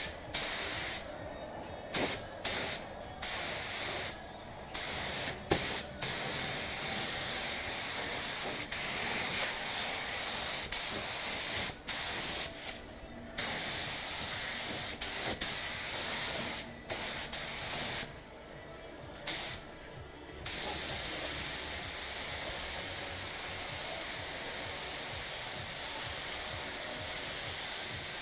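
Pneumatic paint spray gun hissing as it sprays paint, the trigger pulled in short bursts that stop abruptly, then held for a long steady pass over the last third.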